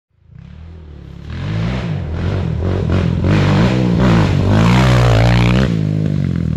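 Racing quad (ATV) engines accelerating hard, their pitch climbing and dropping again and again. The sound is quieter for about the first second, then much louder.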